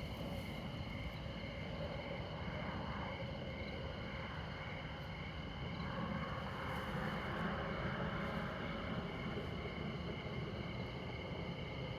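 Crickets chirping steadily in several high, even pitches over the low, constant rumble of distant interstate traffic. One passing vehicle swells louder about halfway through, then fades.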